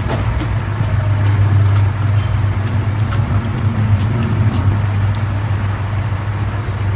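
Close-miked chewing of raw vegetable leaves, with scattered small crunches and mouth clicks, over a steady low rumble.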